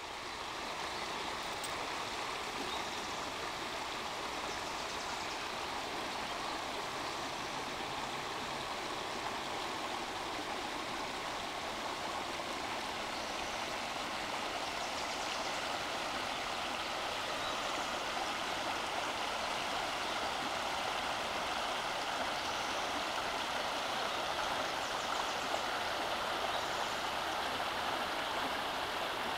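Papermill Creek flowing over rocks: a steady rush of running water, growing a little louder in the second half.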